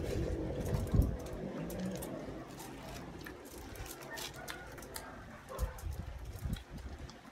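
Eating at a table: scattered small clicks and taps of utensils and food, with a low thump about a second in and faint low murmuring.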